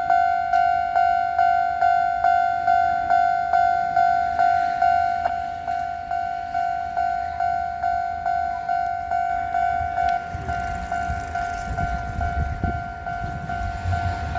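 Level crossing warning bell ringing its 'kan-kan' at an even beat of about two and a half strikes a second. From about ten seconds in, the low rumble of Kagoshima City Tram car 613, a 1962-built tram, passing over the crossing rises under it.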